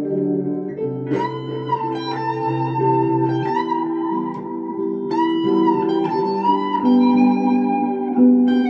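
Semi-hollow electric guitar played solo: sustained chords and melody notes ringing over one another. A couple of notes bend up and back down, about a second in and again about five seconds in.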